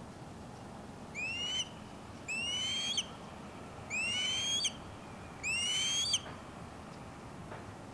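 Osprey calling from its nest: four whistled calls about a second apart, each rising in pitch and ending with a sharp upward flick.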